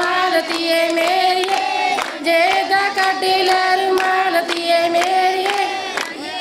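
A group of women singing a Punjabi boli in chorus, holding long notes, with hand-clapping in time.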